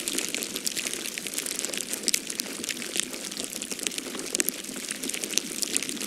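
Falling snow ambience: a dense, irregular patter of small sharp ticks over a steady hiss, the sound of wet snow or sleet landing on surfaces.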